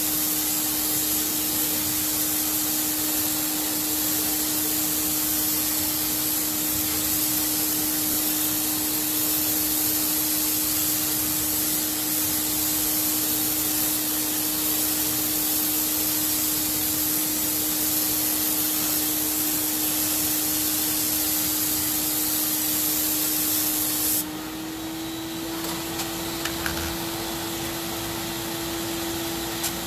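Graco FinishPro HVLP 9.5 turbine paint sprayer running with a steady hum while the gun sprays chalk mineral paint with a loud hiss. About 24 seconds in the trigger is released: the hiss drops away and the turbine's hum rises a little in pitch.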